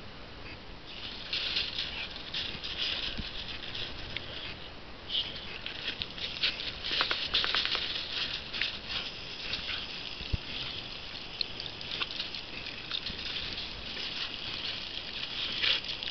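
Water jet from a garden hose spray nozzle pattering and spattering on gravelly ground and on a dog biting at the stream, starting about a second in.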